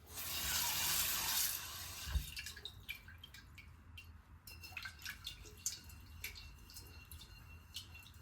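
Water running from a tap for about two seconds, then stopping, followed by scattered drips and small clicks.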